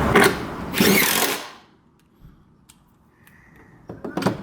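A power drill or driver running in a short rattling burst and stopping about a second and a half in, then a few faint clicks.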